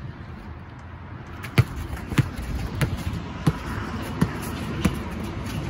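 Basketball dribbled on a concrete driveway: about six evenly spaced bounces, beginning about a second and a half in.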